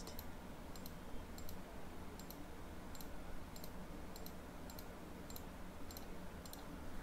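Computer mouse button clicking repeatedly, many clicks in quick press-and-release pairs, about one pair a second, over a faint steady low hum.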